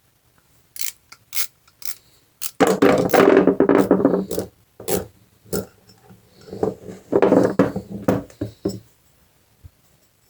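Small metal carburetor parts being handled and worked apart on a workbench. There are a few light clicks, then two stretches of rubbing and scraping, with more clicks in between.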